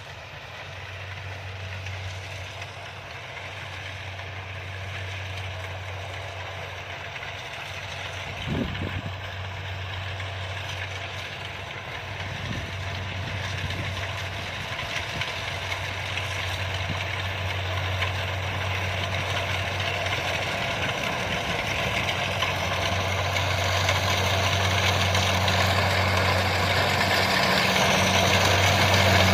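Kubota DC-70 combine harvester's diesel engine running steadily and growing louder throughout, with a short thump about eight seconds in.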